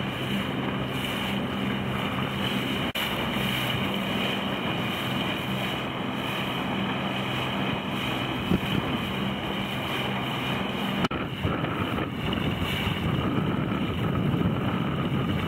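Wind buffeting the microphone over the steady drone of a boat's engine running, with water rushing past. The engine hum fades about eleven seconds in and rougher wind noise takes over.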